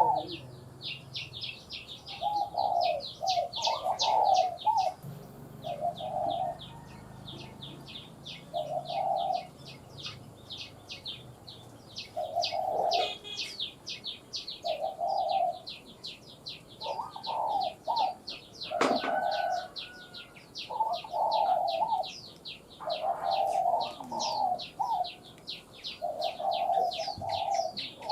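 Spotted dove cooing in short repeated phrases every one to three seconds, over a continuous fast, high chirping.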